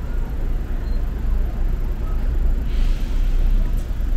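Wind buffeting the microphone of a moving bicycle as a steady low rumble, over a background of city street noise. A brief hiss comes about three seconds in.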